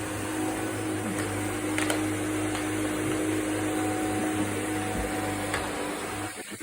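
Vacuum cleaner motor running steadily with a humming drone, dipping briefly in level near the end before carrying on.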